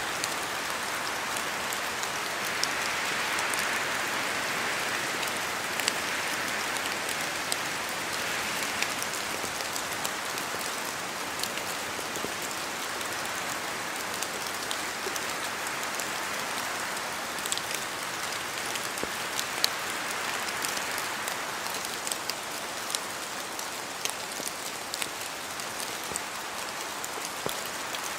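Steady rain in a forest, a continuous hiss with scattered sharper taps of drops falling from the trees. The hiss swells for a few seconds early on, then eases.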